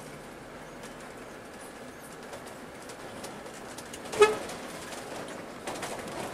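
A single short horn toot about four seconds in, over the steady running and road noise inside the cab of the Scania K360 coach.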